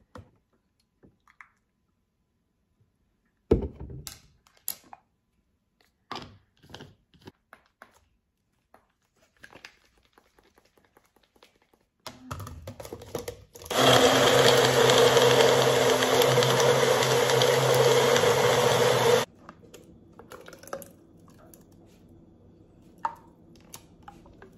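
Nutribullet personal blender running for about five seconds on frozen fruit and almond milk, starting past the middle and cutting off suddenly. Before it come a few scattered knocks and taps.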